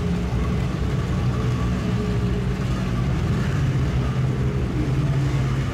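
Outboard engines of several T-550 racing boats running together in a steady low drone.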